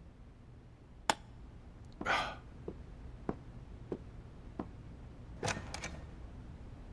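A drinking glass set down sharply on a kitchen counter about a second in, then a short rush of noise, four soft footsteps at an unhurried pace, and a door pushed open with a cluster of clicks near the end.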